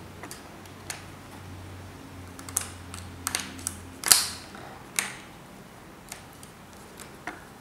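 Scattered light clicks and taps of a hand transfer tool and needles on a Passap knitting machine's needle bed as stitches are moved from needle to needle. The loudest tap comes about four seconds in, with another about a second later.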